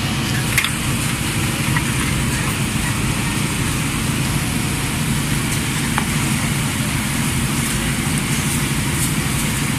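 Cakoi dough sticks frying in a large tray of hot oil, sizzling steadily over a constant low roar, with a few light clicks.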